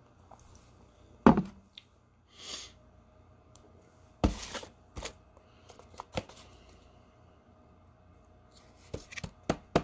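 A few sharp knocks and clicks of objects being handled and set down, two louder knocks about one and four seconds in and a run of quicker clicks near the end, with a short hiss in between.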